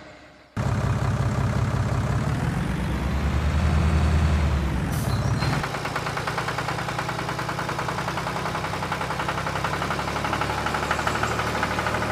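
Heavy diesel engine running with an even chugging pulse, starting abruptly about half a second in. A brief hiss comes near the five-second mark, then the sound cuts to a second, slightly quieter engine note that runs on.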